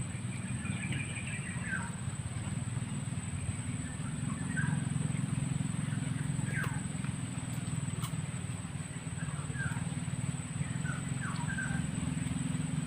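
Birds chirping now and then in short falling notes over a steady low rumbling background and a thin steady high tone.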